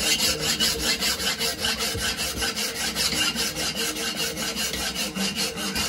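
Hand file rasping on the steel flange of an exhaust downpipe in quick, even strokes, taking off metal so the bolt head no longer rubs on the pipe.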